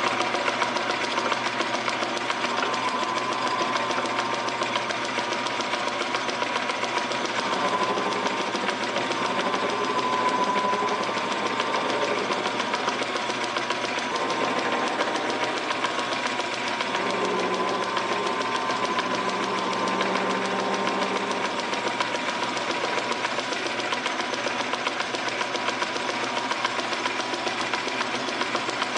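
Metal lathe running steadily, its chuck turning a pulley blank while the tool takes a light clean-up cut. A high whine wavers slightly in pitch over the motor and gear noise.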